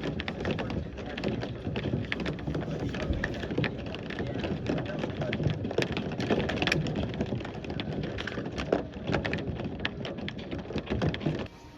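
Heavy rain pattering hard on a surface, a dense, irregular spatter of drop hits. It cuts off suddenly near the end.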